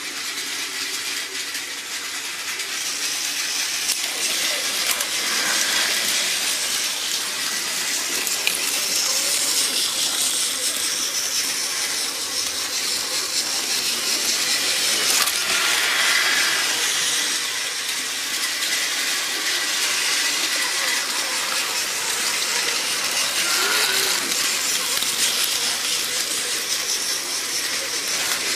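Battery-powered toy trains, a Trackmaster Thomas and a Plarail Amtrak train, running on plastic track: a steady rattling clatter of small wheels and gearboxes over a high whirr of the motors, growing louder and softer by turns.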